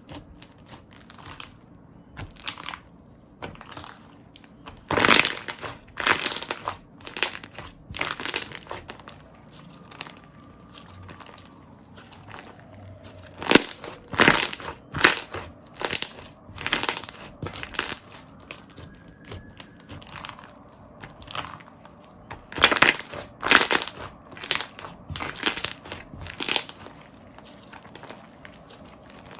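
Slime being squeezed and pressed by hand, giving irregular crackling and popping sounds in loose clusters.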